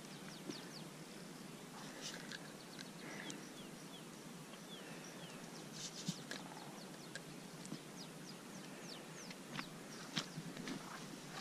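Small birds chirping faintly: many short, high notes that fall quickly in pitch, repeated throughout, with a few soft clicks mixed in.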